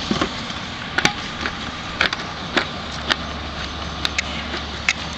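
Plastic lid being pressed down onto a plastic bucket: a string of sharp, irregular clicks and snaps as the rim is pushed into place. A low steady hum runs underneath.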